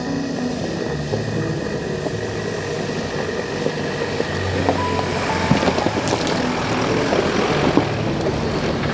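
Toyota Hilux pickup driving slowly up a rocky dirt track, engine running and tyres crunching and popping over loose stones, getting louder from about halfway as it nears. Soft background music with held keyboard notes plays throughout.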